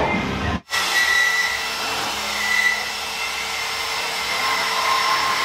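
Portable band saw running steadily, cutting through steel tubing, with a few high tones that shift as the blade bites.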